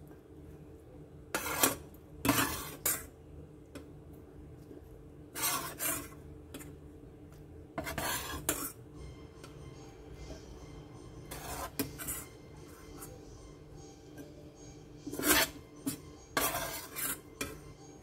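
A metal spoon scraping and clinking against a stainless steel bowl as it moves through soft boiled red beans, in short bursts every few seconds.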